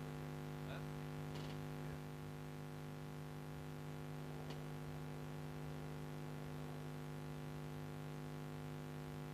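Steady electrical hum, a buzz of many fixed tones that does not change, with a few faint ticks about a second in and again about halfway through.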